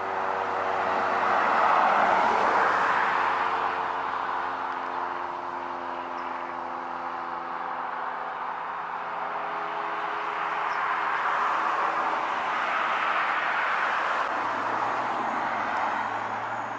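Road traffic: vehicles passing, the tyre-and-engine noise swelling about two seconds in and again near the middle-to-end before fading, with a low steady hum underneath.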